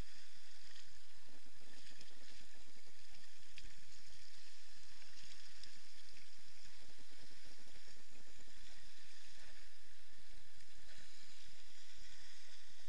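Sea water washing and swirling around shoreline rocks: a steady rushing hiss that does not let up.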